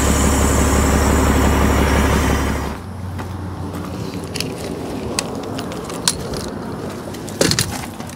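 An engine-driven transfer pump runs with a loud rushing hiss as the last water is blown out of the line. The rush cuts off about three seconds in, leaving the engine idling more quietly, with a few sharp metallic clicks and knocks near the end.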